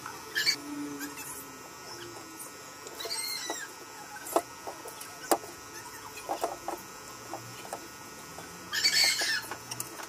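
Broth simmering in a wok, with scattered pops and clicks, while fresh miki noodles go in. A short, higher, call-like sound comes about three seconds in, and a louder burst near the end.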